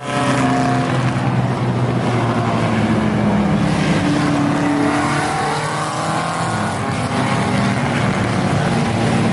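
Car engine running and being revved, its pitch rising and falling.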